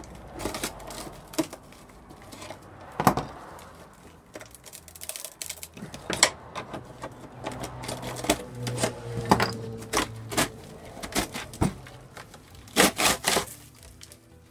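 Screwdriver scraping and prying inside a rusted steel Yamaha XV535 motorcycle fuel tank, with irregular metal clicks and knocks as the cut-out base, crusted with rust and flaking old tank sealer, is worked loose. There is a quick cluster of sharp clacks near the end.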